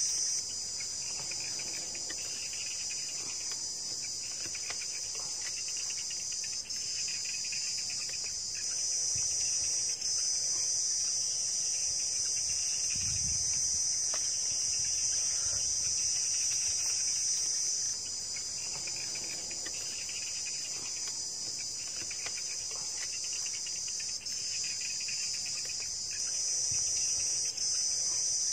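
Insects calling in a dense, steady, high-pitched chorus that dips briefly a few times.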